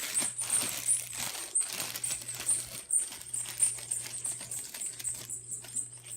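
Packaging rustling and crinkling as a handbag is pulled from its shipping box and handled, with many quick irregular clicks and crackles.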